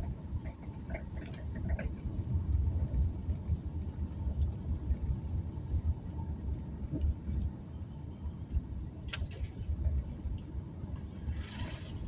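A car driving, with a steady low road rumble. There is a sharp click about nine seconds in and a brief hiss near the end.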